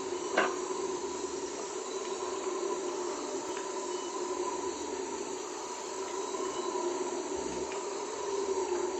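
A chorus of Guyanan red howler monkeys (Alouatta macconnelli) howling as a continuous low drone that swells and eases, over the steady hiss of rain. A single sharp click or drip about half a second in.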